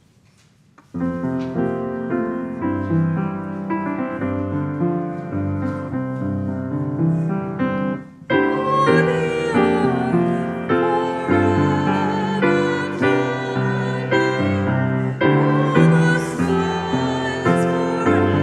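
Piano playing a hymn introduction, starting about a second in. After a brief break near eight seconds it resumes fuller, with a wavering higher melody line joining it.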